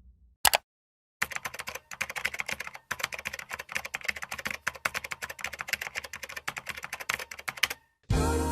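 Fast keyboard typing: a dense run of irregular key clicks lasting about six seconds, after a single click and a short pause. Music starts just before the end.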